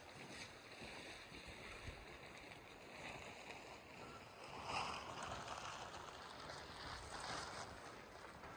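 Faint, steady rush of a flowing river, with a brief swell about five seconds in.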